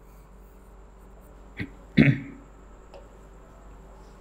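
Faint taps of chalk on a blackboard as figures are written, with a short vocal noise from the writer about two seconds in.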